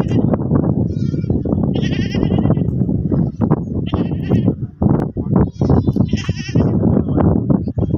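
Goats bleating, several separate quavering calls, over a loud, constant rough rumble.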